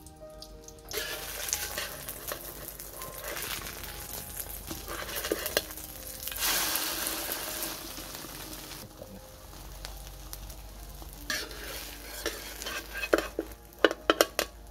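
Egg and chopped dragon fruit peel sizzling in hot oil in a wok, starting about a second in and loudest midway. Near the end a metal spatula clacks and scrapes against the wok several times as the omelette is turned.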